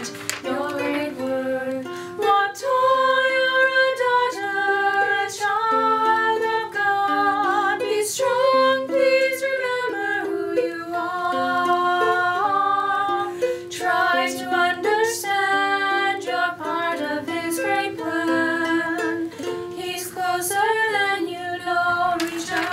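Several women singing a gentle melody to a ukulele accompaniment.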